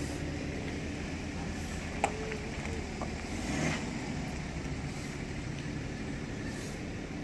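A hand pump inflating a stand-up paddleboard gives a short hiss of air with each stroke, about every second and a half. Under it runs a steady low hum, with one sharp click about two seconds in.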